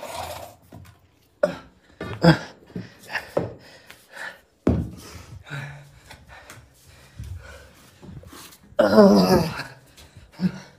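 A man panting and gasping with exertion while straining to lift a loaded barbell in a deadlift, with a few sharp knocks in the first half. The loudest moment is a strained grunt about nine seconds in.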